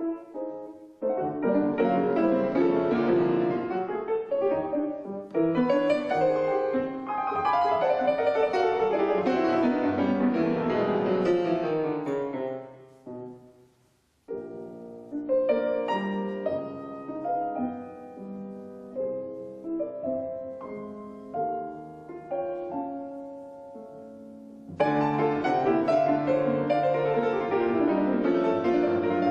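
Solo piano music played on an 1864 Julius Blüthner piano: loud, full phrases, a brief near-silent break about halfway through, a quieter, sparser passage, then loud playing again near the end.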